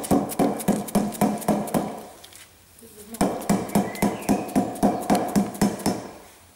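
Rubber mallet tapping a new Land Rover swivel oil seal into its seal plate to drive it in flush: quick light taps about four a second, with a pause of about a second in the middle.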